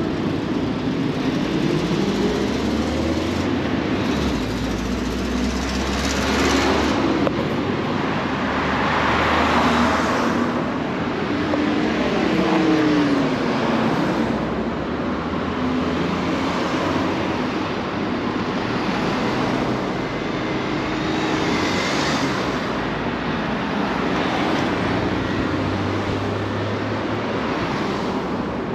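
Road traffic passing close by on a multi-lane city road: cars swell and fade one after another several times, their engine notes sliding in pitch as they go past.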